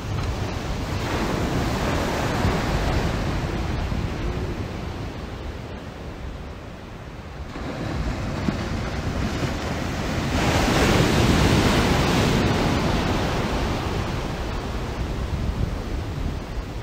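Ocean surf washing in and out, rising and falling in swells, the loudest about ten seconds in, with wind rumbling on the microphone.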